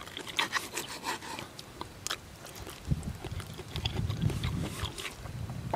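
Knife and fork clicking lightly against a camping pan while cutting a pork steak, then close-up chewing from about three seconds in.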